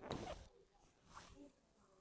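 Short rubbing swish of hands stroking oiled hair or scalp during a head massage, once at the start, then a fainter stroke a little over a second in.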